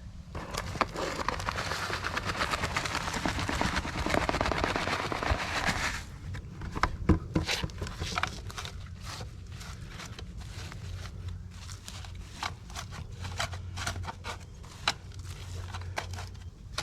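Soil being scooped into a plastic bucket: a rough gritty rush for about five seconds, then scattered crunches and clicks.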